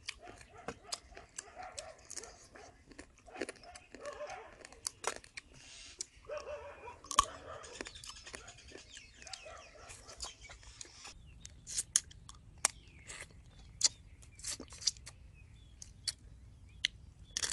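Close-up eating sounds of fried rice field crab: wet chewing with crackling crunches of shell. Later these turn into sharper separate crunches, about one a second.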